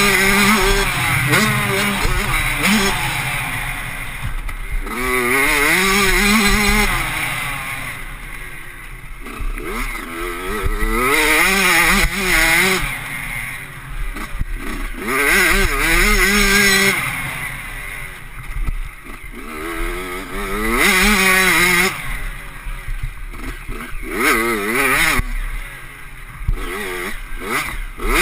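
Suzuki RM85's two-stroke single-cylinder engine, heard from on board the bike, revving hard and backing off again and again, its pitch climbing and falling in surges every few seconds.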